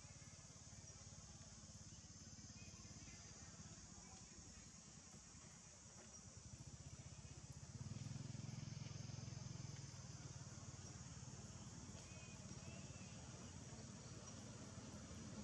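Near silence: faint outdoor background with a steady high hiss and a low rumble that swells about seven seconds in.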